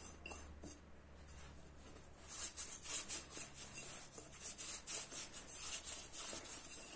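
Fingers rubbing and scraping the inside of a glass bowl to clear off dough and flour stuck to it. The quick, raspy strokes start about two seconds in and follow one another several times a second.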